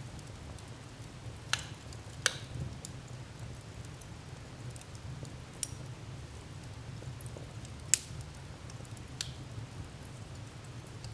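Wood fire burning with a low steady rumble and sparse sharp crackles and pops, the loudest about two seconds in and about eight seconds in.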